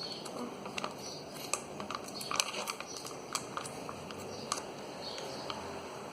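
Hands handling a plastic slime package, giving irregular small crinkles and clicks.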